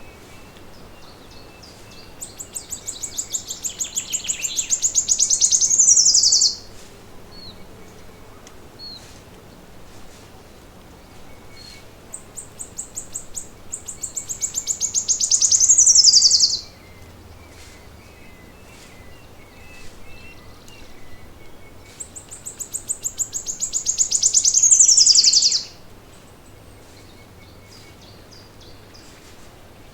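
A songbird singing the same song three times, about ten seconds apart: each is a fast run of high notes lasting about four seconds that grows louder and ends in a short falling flourish. Faint chirps come between the songs.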